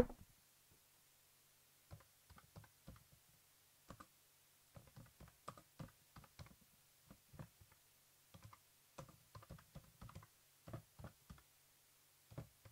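Computer keyboard being typed on, irregular keystroke clicks in short runs with pauses, starting about two seconds in, as a terminal command is entered.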